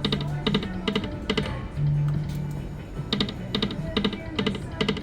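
Poker machine's electronic sound effects: short ticking tones, about two or three a second in two runs, over the machine's steady music.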